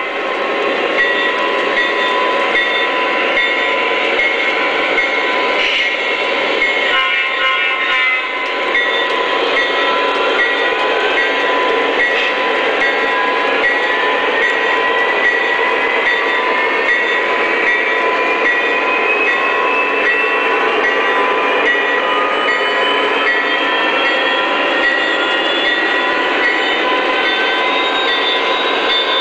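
Onboard sound system of a Lionel O-scale Chessie System diesel locomotive playing its diesel engine sound through a small speaker, thin with no deep bass. From about ten seconds in, a whine rises slowly and steadily in pitch over it.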